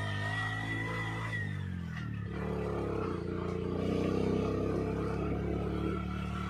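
Motor vehicle engine running steadily; its pitch drops about two seconds in, as when the vehicle slows or changes gear, then holds.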